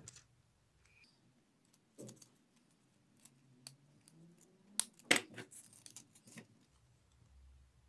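Scissors snipping through a thin metal chain, with small metallic clicks and clinks of the chain links; a few scattered sharp clicks, the loudest about five seconds in.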